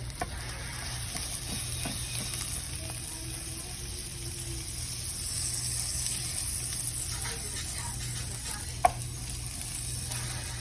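Food sizzling steadily in a frying pan, with a few light clicks and one sharp clink about nine seconds in.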